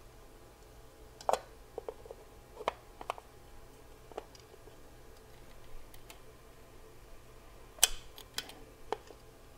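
Scattered light metallic clicks and clinks of hands working the distributor and its hold-down clamp on a 460 big block Ford, in two clusters, the sharpest click about eight seconds in, over a faint steady hum.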